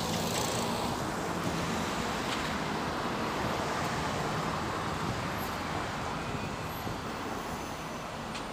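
Steady road-traffic noise from a busy multi-lane highway, cars and buses passing as one continuous hum.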